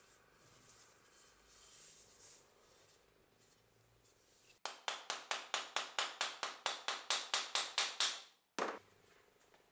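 Green mallet striking in a rapid, even run of about twenty sharp blows, five to six a second, starting about halfway through, then a short pause and one more blow.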